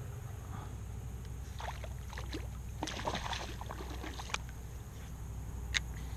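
A hooked bass thrashing and splashing at the water's surface beside a kayak, with a cluster of splashes and short clicks in the middle and one sharp click near the end, over a steady low hum.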